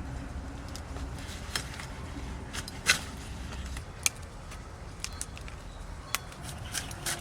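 Cauliflower being cut up: about ten irregular sharp snaps and cracks, the loudest about three seconds in, over a low steady rumble.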